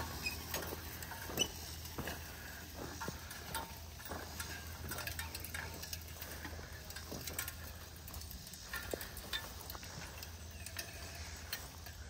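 Mule-drawn disc harrow working the beds: scattered light clicks, knocks and rattles of the discs and harness, at irregular intervals over a low steady rumble.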